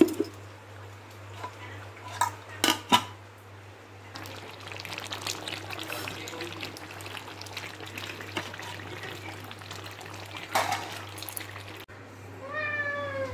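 Kitchen dishes and utensils clinking a few sharp times, then several seconds of steady watery noise with small clinks, and one more clink later on.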